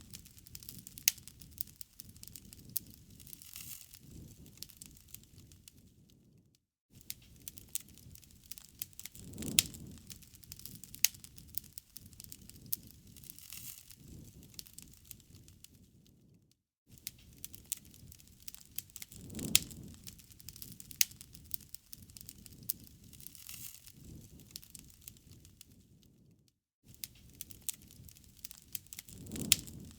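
Wood fire crackling, with many sharp pops and snaps over a low rustle of flames. The sound swells about every ten seconds and cuts out to silence briefly three times.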